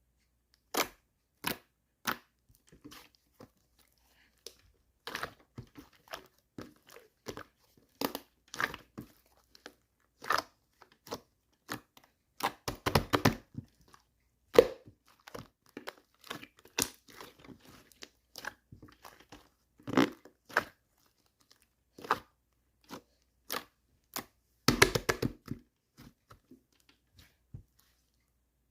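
Pastel two-layer slime being squeezed, stretched and poked by hand, giving irregular sticky pops and crackles, some in quick clusters.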